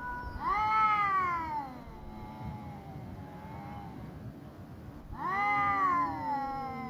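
Stray cats yowling in a standoff, the caterwauling that comes before a cat fight. Two long drawn-out yowls about five seconds apart, each rising and then slowly falling in pitch, with a short, softer call between them.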